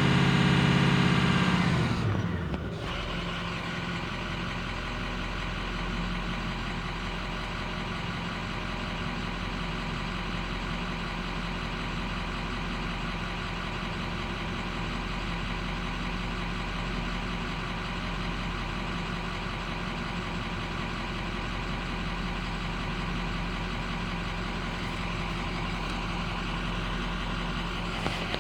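Ford 6.0-litre Power Stroke V8 turbo-diesel running. It is louder for the first two seconds, its speed falls away about two seconds in, and then it settles into a steady idle.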